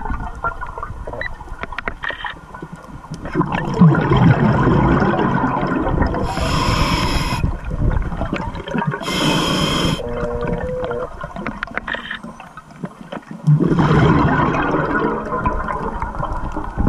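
Scuba diver breathing through a regulator underwater: long gurgling rushes of exhaled bubbles, with two hissing inhalations about six and nine seconds in and a brief hum from the regulator after the second.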